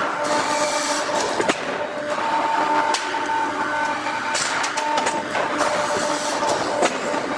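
1600-ton hot forging hydraulic press at work: a steady mechanical din with a whine held on two pitches that fades in and out, broken by several sharp clicks and knocks.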